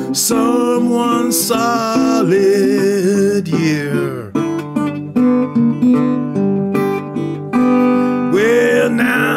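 Metal-bodied resonator guitar fingerpicked in Piedmont blues style, with a man's singing voice over it in places.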